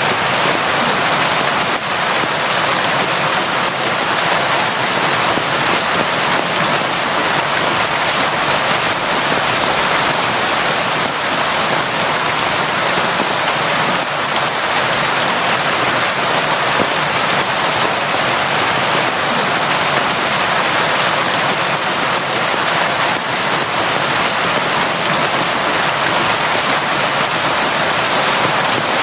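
Steady, constant rain falling, a dense even hiss of drops without letting up.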